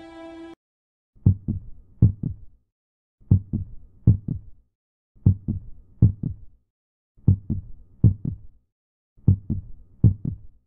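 Background music cuts off half a second in, followed by a heartbeat sound effect: low double thuds repeating about every two seconds, five times.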